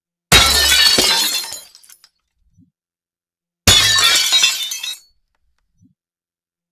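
AI-generated sound effect of glass shattering, played twice. Each is a sudden crash with a brief low thump, followed by tinkling shards that fade over about a second and a half.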